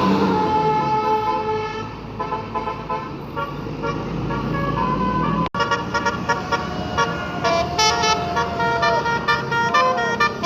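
Multi-tone 'basuri' bus horn (telolet horn) playing a melody of held and quick notes. The sound cuts out for an instant about halfway through, then the tune carries on with faster notes.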